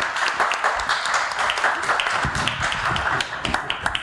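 Audience applauding, dense clapping that thins toward the end.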